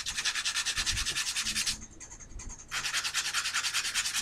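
A small file rasping quickly back and forth on the tip of a bamboo skewer dart, sharpening the point: two bouts of rapid strokes with a pause of about a second between them.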